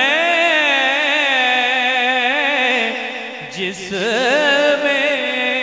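A man singing a naat into a microphone, stretching the words into long, ornamented held notes with a fast vibrato. There is a short break about three and a half seconds in, then another drawn-out note.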